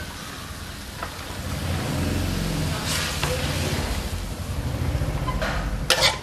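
Egg noodles and kale sizzling in a wok as they are tossed with tongs, over a low steady rumble. A sharp scrape of the tongs on the wok near the end.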